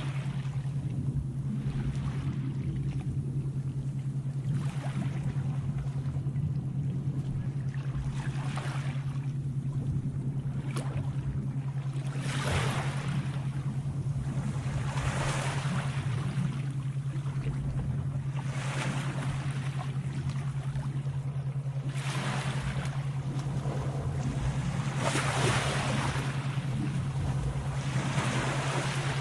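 Sea waves washing in one after another, a surge about every three to four seconds, over a steady low hum.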